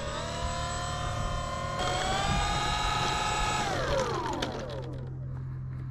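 Avios KingTwin RC model's twin electric motors and propellers whining steadily while it taxis. The pitch rises a little about two seconds in, then winds down and stops about four seconds in as the throttle is cut. A low steady hum carries on underneath.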